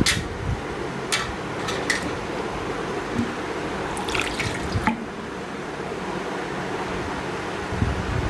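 Water splashing and dripping, with a few light clicks and knocks over a steady background hiss.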